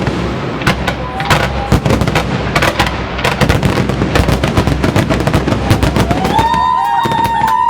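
Fireworks display going off in rapid succession: dense sharp bangs and crackling pops, many a second. About six seconds in, a long high held tone joins in.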